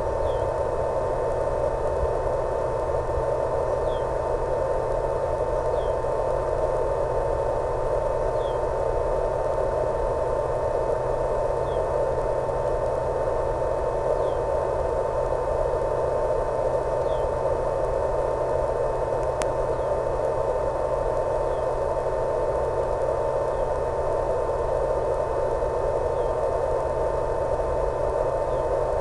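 Steady radio static hiss with a constant single tone running underneath, unchanging throughout, from the analogue wireless video link's audio channel. One faint tick comes about two-thirds of the way through.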